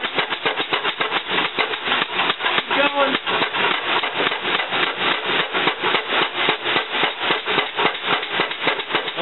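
Hydraulic under-axle aircraft jack pumping as it raises a Boeing 767-300 axle, an even, rapid pulsing of about six strokes a second.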